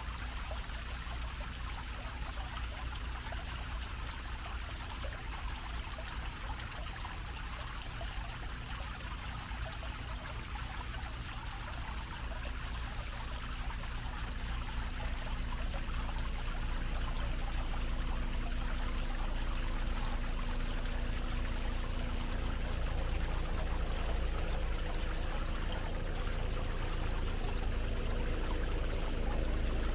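Bell-shaped fountain jet spilling steadily into a shallow basin: continuous splashing water, with a low rumble underneath. It grows a little louder in the second half.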